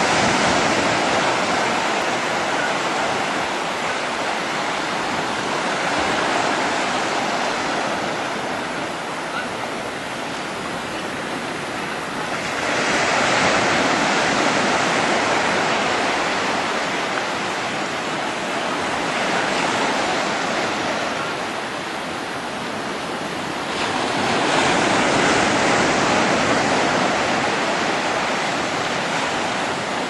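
Small waves breaking and washing up a shallow beach: an even surf hiss that swells and eases every several seconds, with the biggest surges sudden about a third and four-fifths of the way in.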